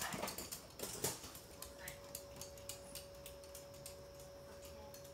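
Toy poodles' claws clicking and tapping on a hard glossy floor as they scamper about, a quick irregular patter that is busiest in the first second or so and then thins out, over a faint steady hum.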